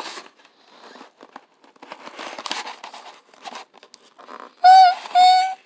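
Clear plastic blister of a carded 1997 Star Wars action figure being pried and torn away from its cardboard backing by hand, with irregular crinkling and tearing. Near the end, a high voice sings two short held notes.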